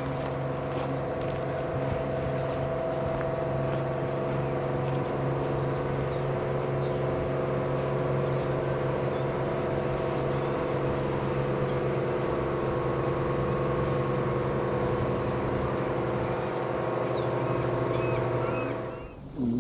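Commercial fishing boat's diesel engine running with a steady, even drone as the boat motors past. The drone cuts off suddenly near the end.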